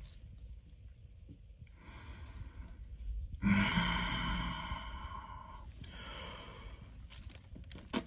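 A man immersed in an ice bath breathing out in long, slow sighs, the loudest beginning about three and a half seconds in. There are a few short clicks near the end.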